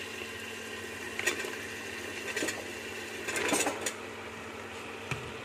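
Chopped ridge gourd pieces tipped into a pressure cooker of fried onions: a few short knocks and clatters against the pot, the busiest about three and a half seconds in, over a steady background hum.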